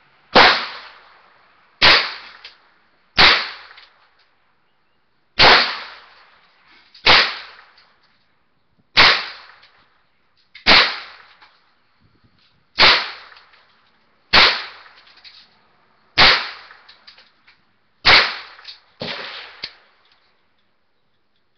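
Gunshots fired one at a time: about a dozen shots roughly every one and a half to two seconds, each followed by a short echoing tail, the last one weaker. Heard through a phone's microphone, which cuts the top off each shot.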